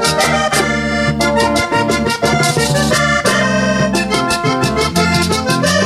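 Vallenato band playing an instrumental passage with no vocals: a Hohner diatonic button accordion leads over electric bass and hand drum, with a steady, driving percussion rhythm.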